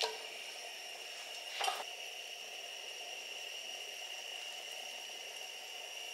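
Food frying in a pan with a steady sizzle, broken by a short clink at the start and another, louder one about a second and a half in.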